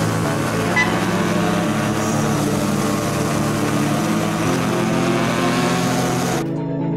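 Motorcycles running through a tunnel, engine and road noise steady, with a short horn beep about a second in. The ride sound cuts off near the end, leaving music.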